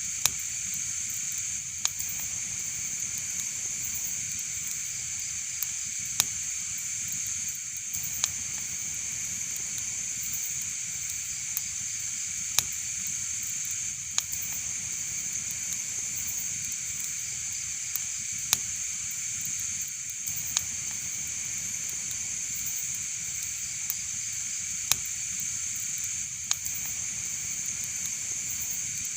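Wood fire in a fireplace burning with a steady hiss and sharp crackling pops every second or two.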